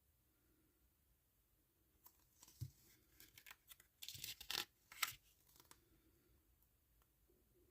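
Blu-ray packaging being handled: a scatter of clicks and rustling, loudest between about four and five seconds in.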